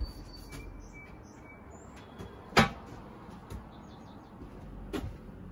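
The lid of a Napoleon TravelQ 285X portable gas grill being shut with one sharp clack about two and a half seconds in, followed by a lighter knock near the end. Birds chirp in the background.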